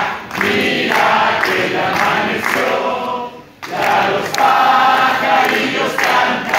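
A crowd of voices singing a birthday song together, with hand clapping. The singing breaks off briefly about halfway through, then picks up again.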